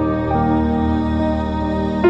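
Background music of sustained, held tones; the chord shifts shortly after the start.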